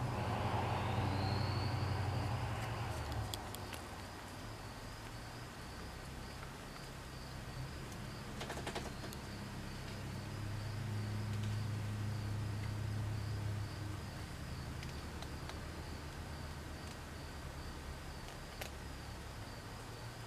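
Insects trilling steadily in a fast-pulsing high drone, over a low hum that swells near the start and again about halfway through, with a few faint clicks.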